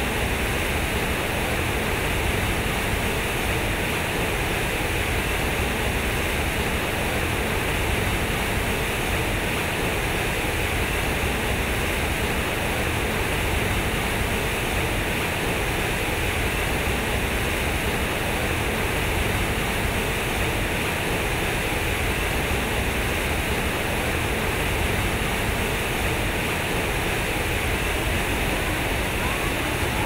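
Fountain water pouring over concrete blocks: a steady, unbroken rush of falling water.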